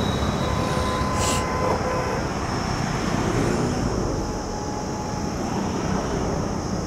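Steady rumble of passing road traffic, with a faint high tone for about a second near the start.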